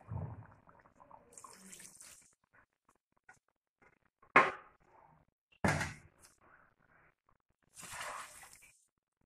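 Kitchen handling around a steel cooking pot of chicken broth. There are two sharp knocks about a second and a half apart near the middle, the loudest sounds. Near the end a silicone spatula stirs the liquid with a brief swishing.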